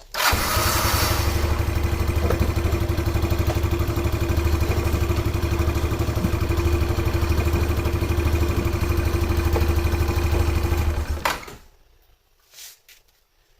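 Yamaha Breeze 125 scooter's single-cylinder engine idling steadily, with an even pulsing exhaust note, stopping abruptly about eleven seconds in.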